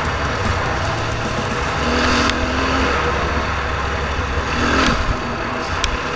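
KTM 350 EXC-F single-cylinder four-stroke dirt bike engine running under way, with wind noise on the helmet-camera microphone; it surges louder about two seconds in and again near five seconds.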